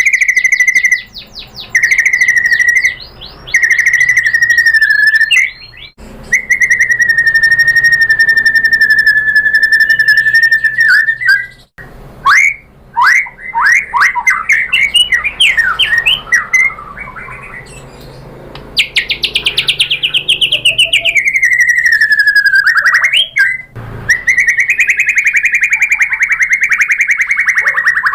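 White-rumped shama (murai batu) singing loudly. Long whistled notes held near one pitch give way to a run of quick rising sweeps, then a long falling note and another sustained whistle.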